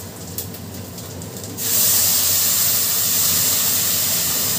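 Water poured into a hot pot of ghee-fried onions and masala, hissing and sizzling. The hiss starts suddenly about a second and a half in and stays loud and steady, after a couple of light clinks of steel vessels.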